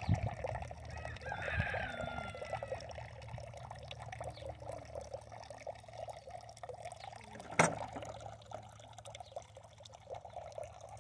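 An alpaca chewing a single stalk of hay, a steady run of fine crunching and crackling. About a second in, a short high call glides for a moment, and about two-thirds of the way through there is one sharp click.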